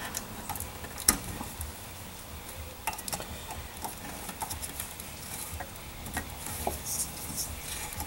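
Small clicks, taps and rustling of hands handling wires and connectors inside an open plasma cutter's metal case, with one sharper click about a second in.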